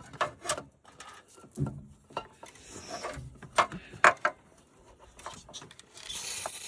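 Metal hand tools and engine parts clinking and knocking, a string of sharp clinks with the loudest two about halfway through; a steady hiss starts near the end.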